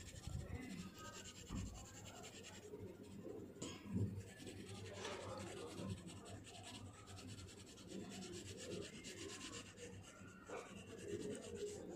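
Graphite sketch pencil rubbing softly over drawing paper in faint, uneven shading strokes.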